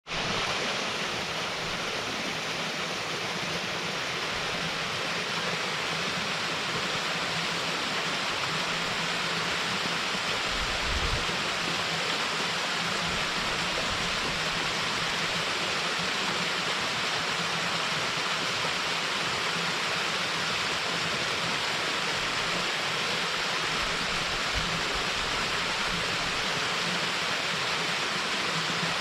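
Small waterfall pouring steadily into its pool, an even, unbroken rush of falling water, with a brief low rumble of wind on the microphone about eleven seconds in.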